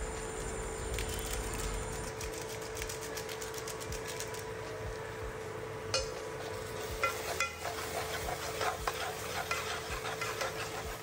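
Steel spoon stirring and scraping thick tomato-onion masala in an aluminium pot, with sharper clinks of the spoon against the pot from about six seconds on. The masala sizzles as the spices cook in the oil, over a steady hum.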